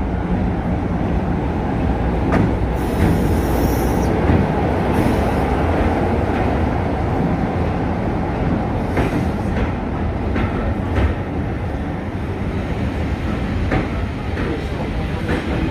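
Diesel-hauled passenger train led by Class 33 D6535 arriving and rolling slowly past: a steady rumble of coach wheels on the rails, with a few sharp clicks along the way.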